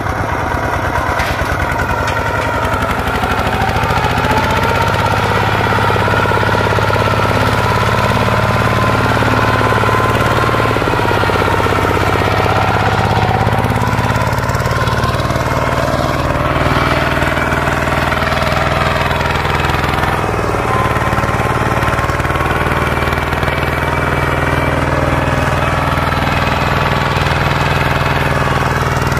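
Kubota two-wheel walking tractor's single-cylinder diesel engine running steadily under load as it pulls a leveling sled and board through tilled soil.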